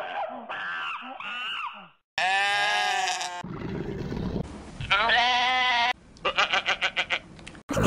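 Goat bleats used as a character's voice: after a short babble of voice-like syllables comes a long, wavering bleat, then a shorter bleat, then a rapid stuttering bleat near the end.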